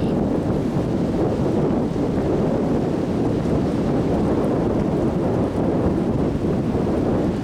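Strong wind gusting steadily, buffeting the microphone with a deep rumble.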